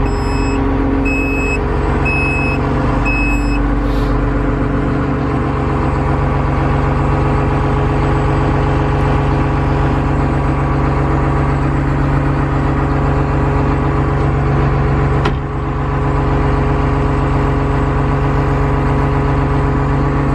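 Bulldozer's diesel engine idling steadily, heard from inside the cab, just cranked after sitting unused for a couple of weeks. Four short, evenly spaced high beeps sound over it in the first few seconds.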